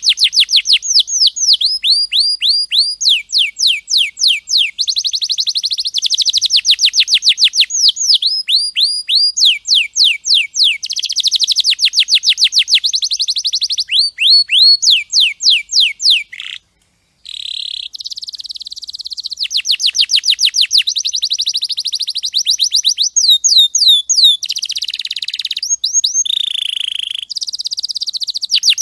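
Domestic canary singing long rolling trills: fast runs of repeated downward-sweeping whistled notes, changing speed and pitch from phrase to phrase. The song breaks off briefly into silence a little past halfway, then resumes.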